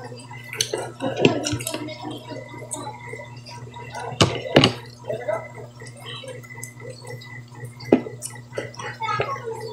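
People eating at the table: wet chewing and lip-smacking sounds, with several sharp clicks scattered through, over a steady low hum.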